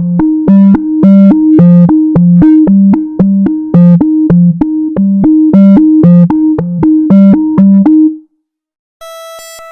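Synthesized electronic alert melody: a loud, repeating pattern of short keyboard-like notes alternating between a low and a higher pitch, about two notes a second, cutting off about eight seconds in. After a brief gap a different steady electronic alert tone starts near the end.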